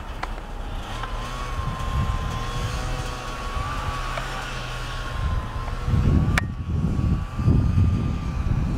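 Ski-Doo snowmobile engine running at speed with a steady high whine as the machine moves away across the snow. From about six seconds in, an irregular low rumbling joins it, with one sharp click.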